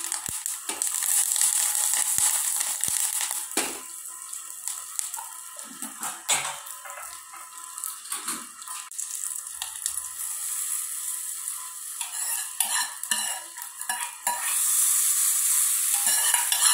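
Tempering for coconut chutney sizzling and crackling in a small pan: curry leaves in hot coconut oil with mustard seeds, urad dal and dried red chillies, with a few spoon clinks against the pan. Near the end the sizzle grows louder as a spoon scrapes the tempering out of the pan into the chutney.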